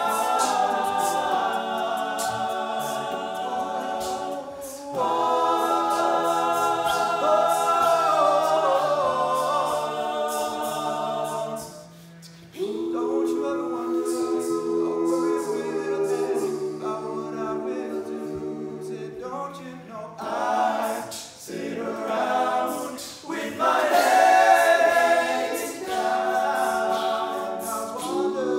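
All-male a cappella group singing in close harmony without instruments: sustained chords over a moving bass line. About twelve seconds in the sound drops briefly, then comes back in shorter phrases that swell and fall.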